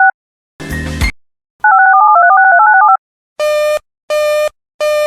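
Two quick sequences of DTMF touch-tone pairs, separated by a brief burst of noise, then a series of evenly spaced electronic beeps about 0.7 s apart starting about three and a half seconds in.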